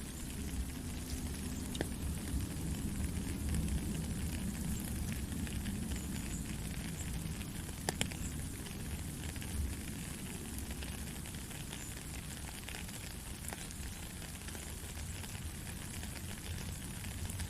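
Steady rain falling, a dense hiss with scattered sharp drop clicks, one louder click about eight seconds in.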